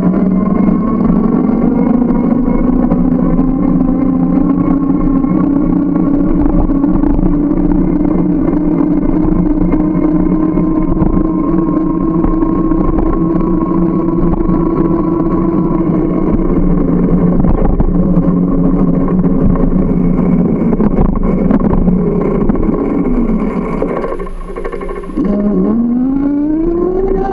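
A motor running with a steady, pitched whine, over a haze of rushing noise. About three-quarters of the way through the pitch falls away and the sound briefly dips, then the whine climbs steadily in pitch near the end.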